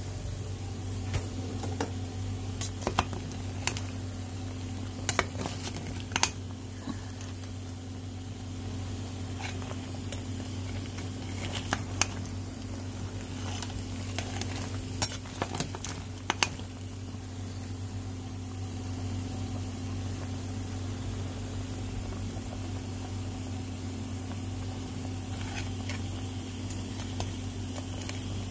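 Stovetop cooking: a pot of seafood boil bubbling and food sizzling in a pan, with scattered sharp clinks of a utensil against the pots, mostly in the first half, over a steady low hum.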